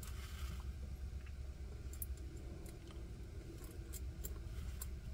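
Faint, irregular small clicks of knife parts being handled in the fingers, starting about two seconds in, over a low steady hum.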